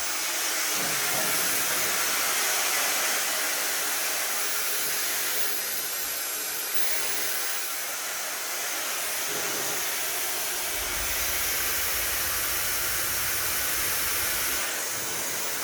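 Brushless high-speed hair dryer running steadily: an even rush of air with a strong high hiss. A low rumble joins in for the last few seconds.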